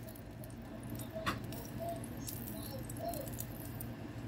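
Faint crackling from the roasting pork on the rotisserie spit, over a low steady hum, with a single click about a second in.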